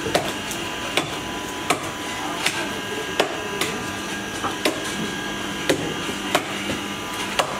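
Sharp knocks at irregular intervals, a little over one a second, like chopping or pounding on a hard surface in a busy kitchen, over a steady background hum.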